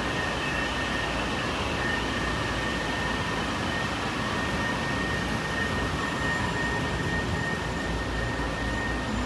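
Cabin noise of a Honolulu Skyline metro train running between stations: a steady rumble with a thin steady high whine over it.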